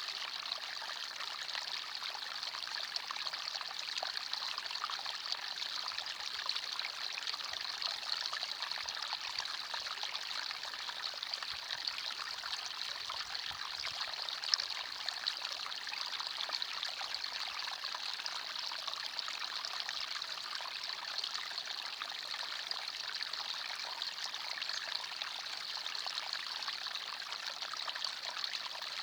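Forest stream flowing steadily: a continuous rushing and trickling of water over stones, even throughout.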